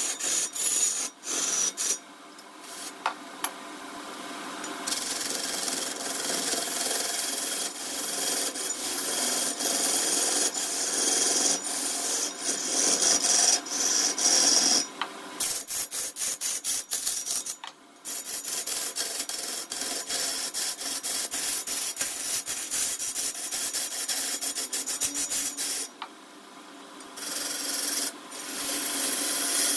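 Wood being cut and scraped on a lathe with a turning tool: a continuous rough rasping full of small ticks, easing off briefly a few times.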